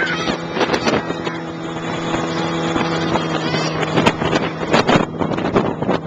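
Polaris snowmobile engine running at a steady pitch while towing sleds, with wind buffeting the microphone in gusts.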